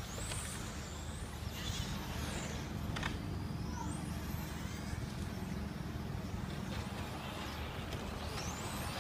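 Electric motors of RC racing cars whining high-pitched, rising and falling several times as the cars accelerate and brake through the corners, over a steady low background rumble.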